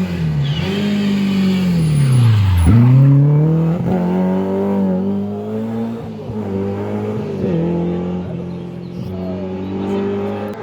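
Historic rally car engine at high revs. Its pitch drops steeply about two and a half seconds in as it brakes for a bend, then climbs again in several steps as it accelerates away through the gears.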